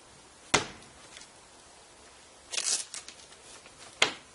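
Two sharp clicks, one about half a second in and one near the end, with a brief rustling scrape between them: a Vespa scooter's seat and saddlebag straps being handled.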